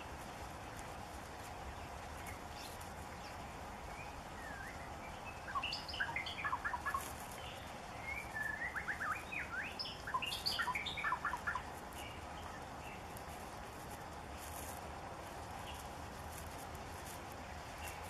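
White-rumped shama singing: three short bursts of quick, varied whistles and gliding notes in the middle of the stretch, over a steady background hiss.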